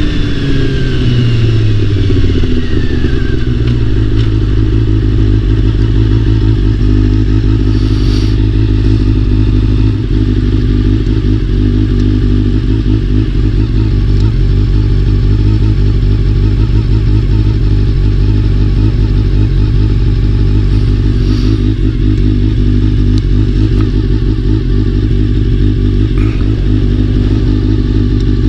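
Honda CBR400RR's inline-four engine revving down over the first few seconds, then idling steadily, with a few faint ticks. The owner says the bike has an abnormal noise, which he puts down to its Chinese-made aftermarket fuel pump.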